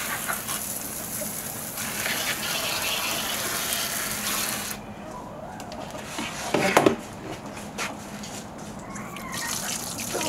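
Running water rinsing a freshly eviscerated chicken carcass to wash off bile from a burst gallbladder. The water stops about four and a half seconds in, a few handling knocks follow with one louder thump, and it runs again near the end.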